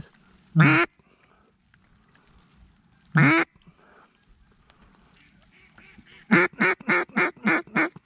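Mallard duck call blown close by: a single loud quack about half a second in, another around three seconds, then a run of seven quick quacks, about four a second, near the end.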